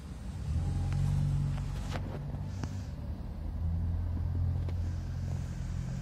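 Low engine hum of a motor vehicle, swelling about half a second in, easing briefly around three seconds and swelling again. A few faint clicks sound in the first half.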